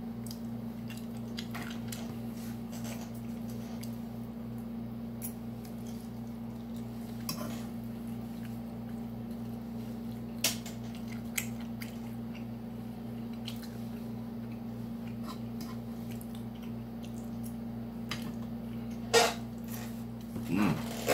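Close-up eating sounds: chewing with scattered sharp clicks of a fork against a plate, the loudest about ten seconds in and near the end. A steady low hum runs underneath.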